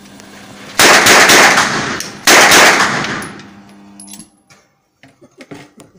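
Two bursts of full-automatic fire from a 9mm Uzi submachine gun, about a second apart, each lasting over a second and tailing off in the echo of an indoor shooting range. A steady low hum runs underneath and stops about four seconds in.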